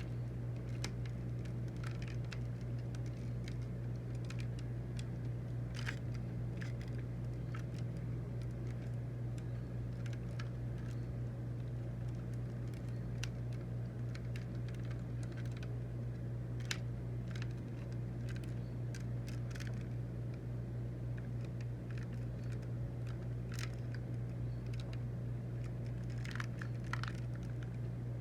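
Plastic parts of a transforming robot toy being handled, shifted and pegged into place: scattered small clicks and clacks, with a denser cluster near the end, over a steady low hum.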